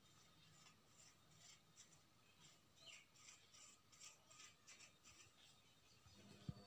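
Faint, irregular crackling of cubed potatoes and onion frying in oil in a kadai over a medium gas flame, with a soft thump near the end.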